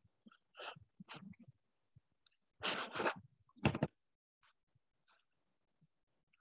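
A few short breath and mouth sounds picked up by a close computer microphone, with dead silence between them and after about four seconds in.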